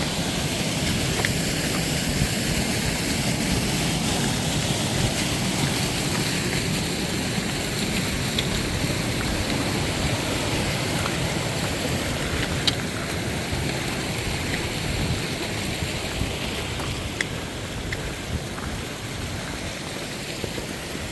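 Steady rushing water, as of a fast-flowing snowmelt creek, with a few faint small ticks over it.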